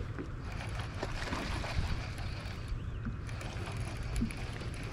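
Outdoor noise on a bass boat: a steady low rumble of wind and water, with a few faint small knocks.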